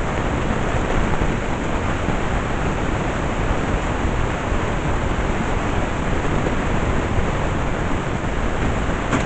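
Vacuum cleaner running steadily, a loud even rushing noise, with a short click near the end.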